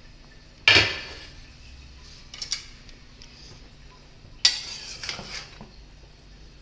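Metal utensils clanking against a stainless steel cooking pot: two loud clanks, about a second in and again past the middle, each ringing briefly, with a few lighter clinks between them.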